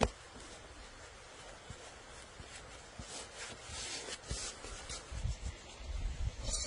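Hands kneading and rolling bread dough on a floured wooden board: soft rubbing and scuffing strokes. A sharp click at the very start.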